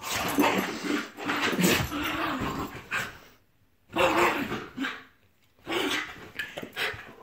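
Small dog growling and barking in play with a ball in its mouth, in three rough bursts separated by short pauses.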